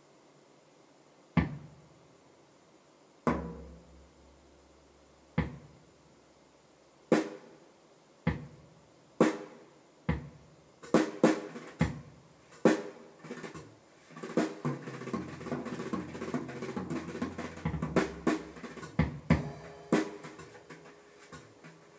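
Drum-led recorded music played back through a pair of large floor-standing loudspeakers. Single drum strikes come about two seconds apart, then quicken and thicken after about ten seconds as sustained notes from other instruments join in, and thin out near the end.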